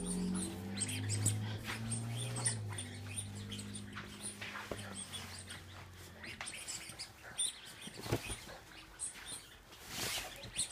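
A puppy tugging and worrying at a bedsheet: fabric rustling and scratching with many short scrapes. For the first few seconds a low, steady growl-like drone sits under it, then it fades out.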